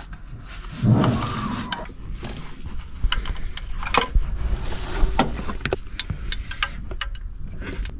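Scattered light clicks, taps and rubbing of a glow plug on a magnetic pickup tool and a gloved hand working it down between engine parts toward its hole, with a louder rustle about a second in.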